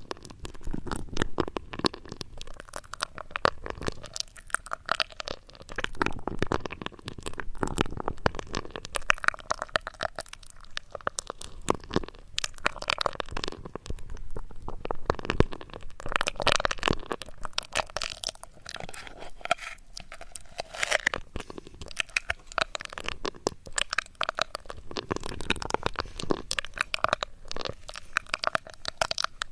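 ASMR trigger sounds worked close on a microphone: a dense, irregular run of crunching, crackling scratches and rustles, such as ear-cleaning tools or fingers on a binaural mic make.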